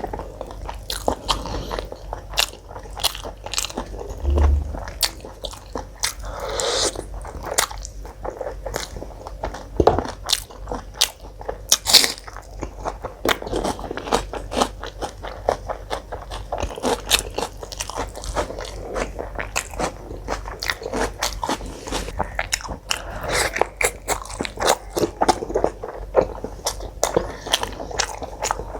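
Close-miked mouth sounds of a person eating: biting and chewing food in a dense run of short crunches and clicks, with a couple of louder bites about ten and twelve seconds in.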